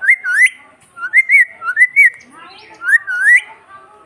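Pet parrot giving four short, loud whistled calls, each a quick rising and wavering glide.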